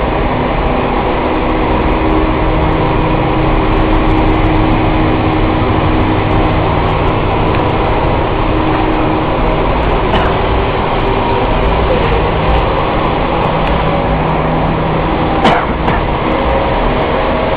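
Twin-screw extruder snack production line machinery running: a loud, steady mechanical hum with several steady motor tones. A sharp click comes about ten seconds in and another near the end.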